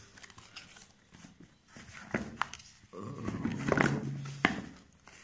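Hands handling a sneaker and its paper swing tag: rustling with a few sharp clicks, and a louder stretch in the second half with a low steady hum underneath.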